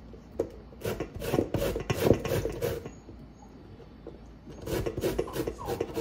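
Rasping strokes of food being rubbed across a small metal hand grater, about four or five strokes a second. The grating comes in two runs with a short pause in the middle.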